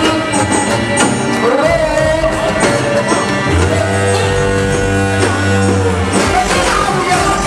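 Loud Egyptian dance-music mix with a sung or synth melody of long, gliding notes over a steady bass line.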